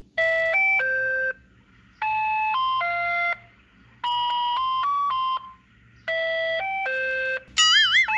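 Simple electronic chime melody, like a doorbell or jingle tune: four short phrases of three plain beeping notes each, about two seconds apart, with a quick warbling trill near the end.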